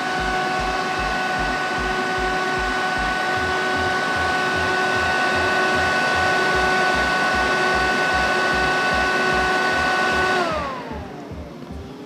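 Cooling fans of a CyberPower OR2200LCDRTXL2U rack-mount UPS running crazy loud, a steady whine over rushing air. About ten seconds in they spin down, the whine falling in pitch and the noise fading as the unit shuts its fans off.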